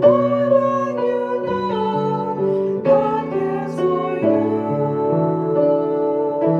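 Women singing a song with piano accompaniment, in long held notes.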